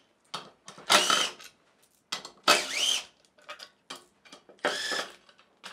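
Cordless driver backing out the bolts that hold a CNC fixture to its subplate, in three short runs of about half a second each, the motor's whine rising and falling with each trigger pull.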